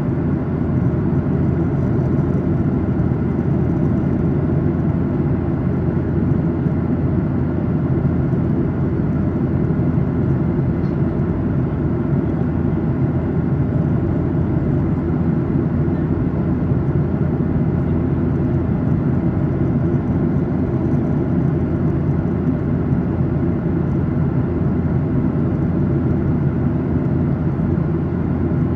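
Steady low cabin drone of a Boeing 737-800 in cruise flight, from a window seat: air rushing along the fuselage together with the hum of its CFM56-7B engines.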